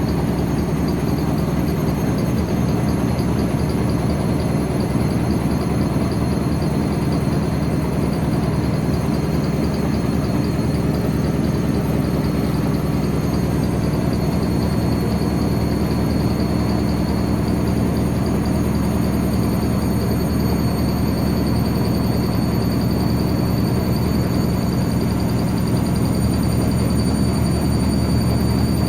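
Whirlpool AWM 864 Aquaprogramm washing machine running without pause: a steady heavy rumble from the drum with a thin high motor whine that rises slightly in pitch near the end.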